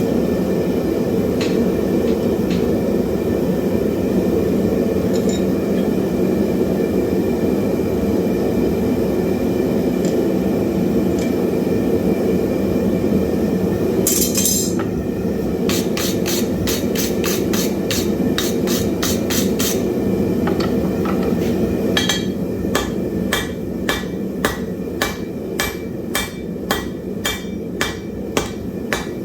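Hand hammer striking hot wrought iron on an anvil: about halfway through a quick run of blows, then steady ringing blows about two a second near the end, over a steady machine hum. A short scraping noise comes just before the hammering starts.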